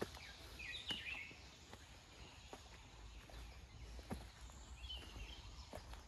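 Quiet forest ambience with a few faint bird chirps, once about a second in and again about five seconds in, over soft footsteps on a dirt path and a low rumble.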